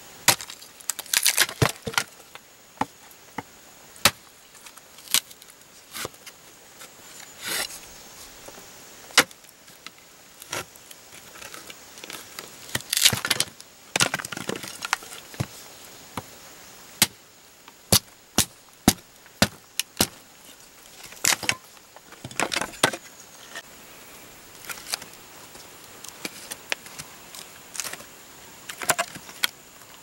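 Dry wooden boards being pulled apart and dropped: irregular sharp knocks, cracks and clatters of wood on wood, some coming in quick bunches.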